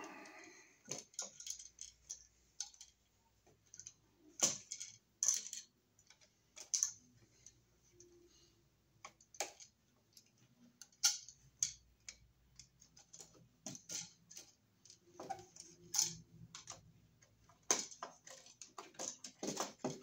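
Irregular small metal clicks, ticks and scrapes of a screwdriver working a light switch's screw terminals as the wires wrapped around the screws are taken off.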